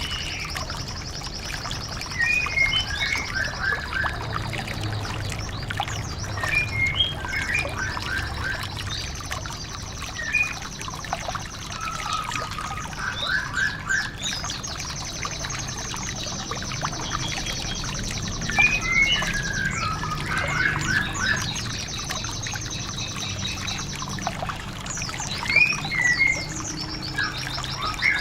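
Small songbirds singing: repeated high, fast trills and scattered short chirps, over a steady trickle of running water and a low hum.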